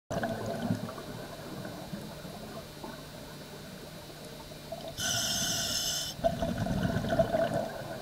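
Scuba diver breathing through a regulator underwater: the hiss of an inhalation about five seconds in, lasting just over a second, then a burst of exhaled bubbles gurgling and rumbling.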